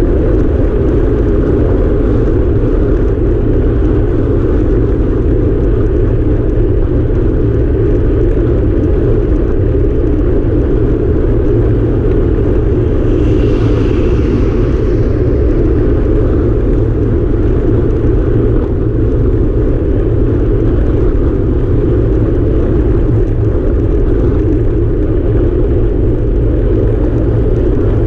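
Steady wind rush and road rumble on a handlebar-mounted camera of a road bike ridden at speed. An oncoming pickup truck passes about halfway through, adding a brief rush.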